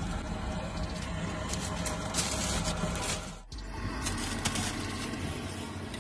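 Steady background noise of a busy street-food kitchen with a low hum, with a few brief scrapes and a short drop in sound about halfway through.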